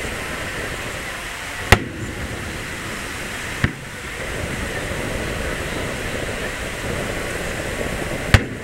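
Fireworks shells bursting high overhead: three sharp bangs, one about two seconds in, a weaker one about four seconds in, and a loud one near the end, over a steady wash of surf noise.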